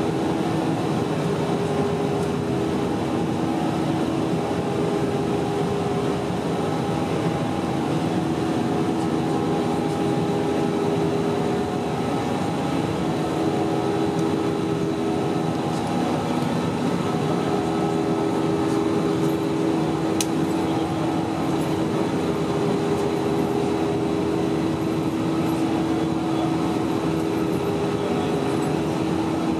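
Steady cabin noise of an Airbus A320-232 in the climb, heard from a seat beside the wing: the even roar of its IAE V2500 turbofan engines and airflow, with a low hum that swells and fades every few seconds.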